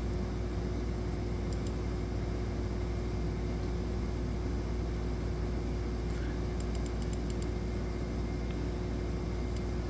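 Steady fan-like room hum and hiss with a faint constant tone, and a few faint short ticks scattered through it.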